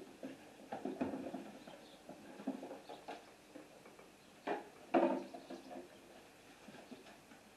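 Soft irregular taps and rustles of floured pork cutlets being pressed and turned in flour on a plate, over a faint steady sizzle of cutlets frying in oil.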